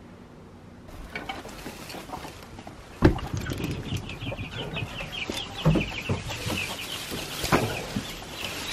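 A flock of young chickens peeping and clucking, their short high calls growing busier toward the end, with a sharp knock about three seconds in and a couple of duller thumps later.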